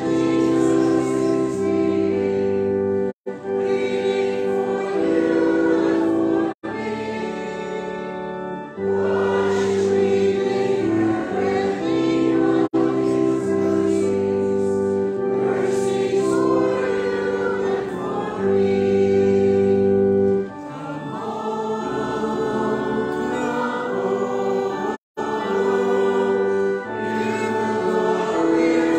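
Church congregation singing a hymn together in long held notes, with organ accompaniment. The sound cuts out for an instant three times, at about 3, 6.5 and 25 seconds in.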